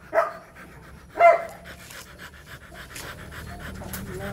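Rottweiler panting rapidly with its mouth open, with two short, high dog barks about a second apart near the start.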